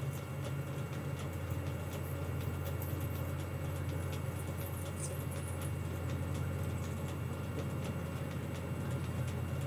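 Metal lathe running steadily at slow speed, a low hum with an even hiss above it, while a 9 mm machine reamer in a floating holder cuts into an oiled bore in the spinning workpiece.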